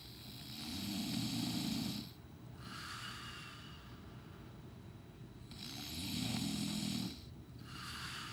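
A sleeping man snoring: two long rasping snores on the breath in, about five seconds apart, each followed by a softer breath out.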